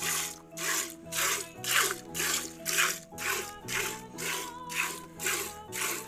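Milk jets from a Murrah buffalo's teats, hand-milked, squirting into a steel bucket with milk in the bottom: a steady rhythm of hissing spurts, about two a second, as the hands squeeze in turn. Background music plays under it.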